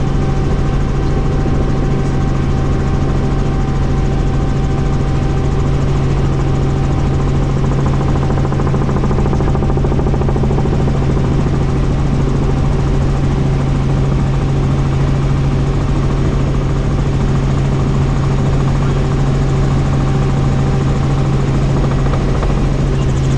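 Helicopter in flight: engine and rotor running as a steady low drone with a strong constant hum, unchanging throughout.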